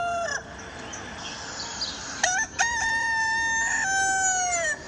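Rooster crowing: the tail of one crow ends about half a second in, then a full cock-a-doodle-doo starts about two seconds in, holds, and falls in pitch at the end.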